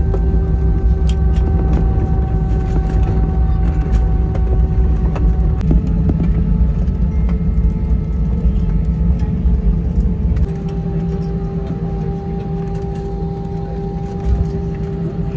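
Cabin noise of an Airbus A320-family jet airliner slowing on the runway after touchdown and taxiing: a steady low rumble under the engines' whine, which shifts pitch about six seconds in and again about ten seconds in, where the rumble drops off.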